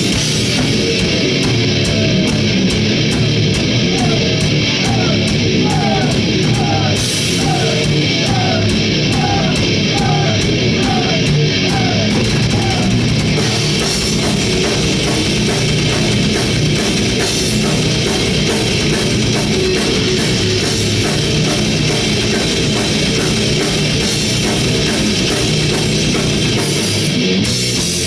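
Live heavy rock band playing loud, with distorted guitars and fast, driving drums and cymbals; through the first half a short bending guitar figure repeats over and over.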